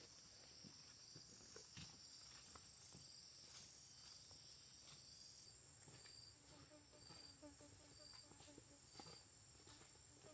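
Near silence with a faint, steady high-pitched insect chorus, and a faint short call repeating a few times in the second half.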